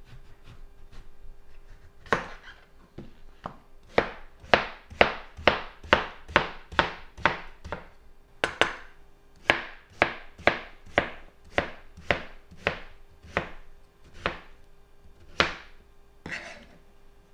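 Large kitchen knife slicing a peeled zucchini rampicante neck into rounds, each cut ending in a knock on the cutting board. About twenty even cuts at roughly two a second, with a softer scrape near the end.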